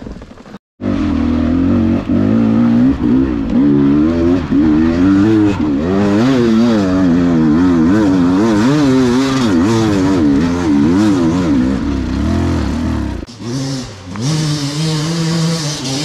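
Beta 300 two-stroke enduro motorcycle engine being ridden hard, its pitch rising and falling rapidly with the throttle. There is a brief gap near the start, and the engine eases and settles to a steadier note about 13 seconds in.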